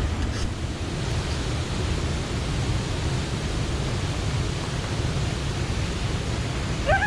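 Steady rumbling noise of wind buffeting the microphone, heaviest in the low end and never letting up.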